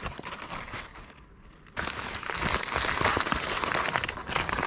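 Packing wrap being crinkled and rustled by hand as an item is unwrapped. It starts about two seconds in, after a quieter stretch of small handling clicks, and goes on densely through most of the rest.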